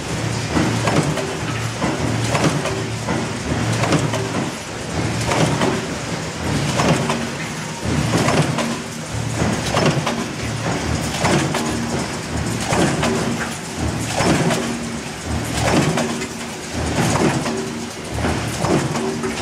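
Minster Piece-Maker straight-side stamping press running under power and cycling continuously. Each stroke of the die through the strip stock clatters, a little over a second apart, over the steady hum of the drive and flywheel.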